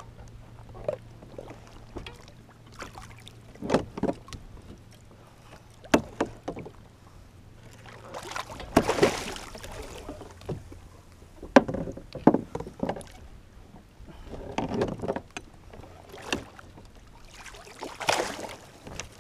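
Water splashing beside a kayak, loudest about nine seconds in and again near the end, with irregular knocks and bumps against the hull.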